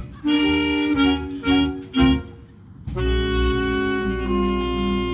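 A big band's saxophones and brass playing four short, punchy ensemble hits, then, after a brief gap, a long held chord.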